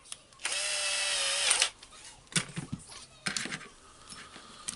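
Small electric screwdriver or drill motor running for about a second, driving in the screw that fixes the thermal plate to the new switch, then stopping. Light clicks and knocks of small parts being handled follow.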